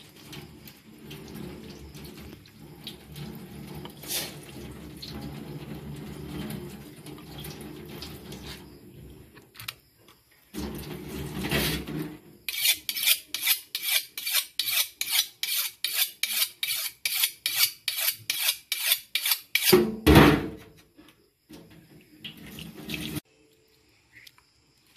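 Tap water running into a sink, then a knife scraping along a red devil cichlid on a plastic cutting board in quick even strokes, about three and a half a second, for some seven seconds. A single heavy chop of the knife on the board follows.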